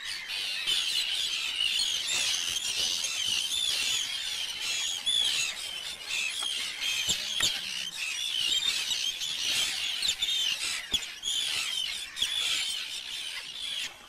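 A flock of seabirds calling, many high-pitched calls overlapping continuously.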